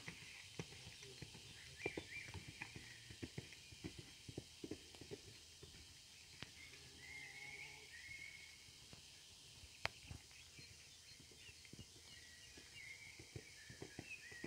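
Faint outdoor ambience: scattered soft thuds of a ridden horse's hooves cantering on arena sand, with small birds chirping now and then in the background.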